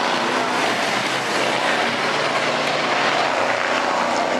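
Several school bus engines running hard together in a race: a steady, loud mix of overlapping engine tones over a wash of noise.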